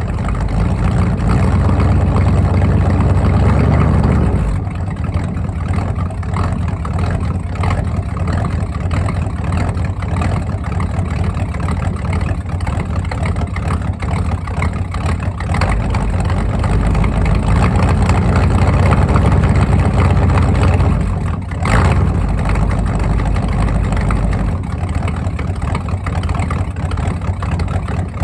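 Ford 302 small-block V8 running at a steady idle through its exhaust while it warms up from a cold start. The engine note is higher for the first few seconds and drops, builds slowly again, then dips briefly with a short bump just after twenty seconds before settling.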